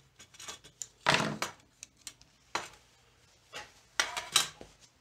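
A plastic spring clamp opened and set down on a wooden workbench while a red plastic tail-light lens is handled: a few sharp knocks and clatters. The loudest comes about a second in, with another cluster around four seconds in.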